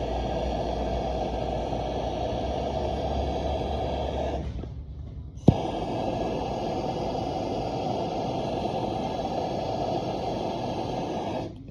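Plumber's torch flame burning with a steady rush while heating a 2-inch copper joint for soldering. It drops back about four and a half seconds in, comes back after a sharp click about a second later, and cuts off near the end.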